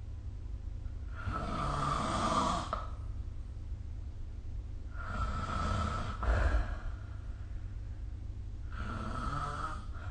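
A sleeping person snoring, recorded by a phone's microphone: three long, rasping breaths about three to four seconds apart, over a steady low hum.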